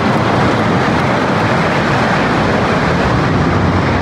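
Hoosier Hurricane wooden roller coaster train rumbling loudly and steadily over its wooden track overhead, a dense clattering roar with a deep low rumble.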